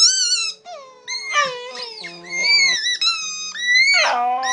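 Border Terrier giving a run of high-pitched, sliding whining cries, then breaking into a long, lower howl near the end.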